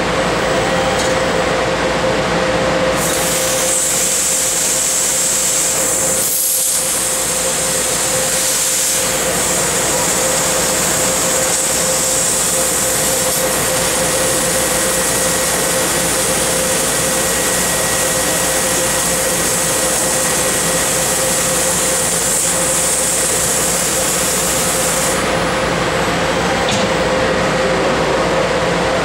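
A 6 kW laser cutting machine cutting 3/4-inch mild steel plate. A strong hiss from the cutting head and its gas jet starts about three seconds in and stops a few seconds before the end, over a steady machine hum with a constant tone.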